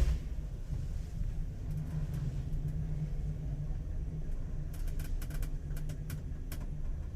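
Hitachi Urban Ace elevator running between floors: a steady low hum and rumble, with a quick run of sharp clicks about five seconds in.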